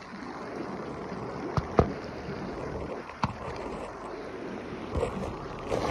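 Creek water rushing steadily over a rocky bed, with a few short sharp knocks, the loudest about two seconds in and another a little after three seconds.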